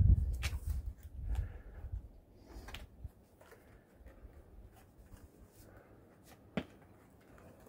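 Climbing shoes and hands scuffing and tapping on granite during a bouldering traverse, with a sharper knock about six and a half seconds in. A low rumble fades out over the first two seconds.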